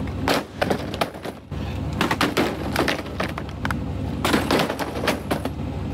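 Chevy OBS pickup truck's engine running under several bursts of cracking and crunching, as the truck is bashed through or against something.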